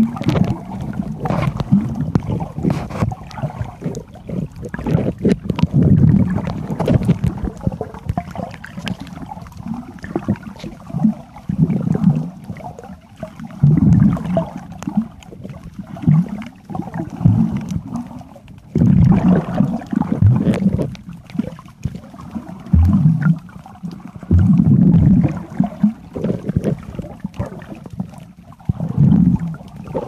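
Muffled underwater noise picked up by a camera held under the surface, a low rumbling that surges irregularly every few seconds.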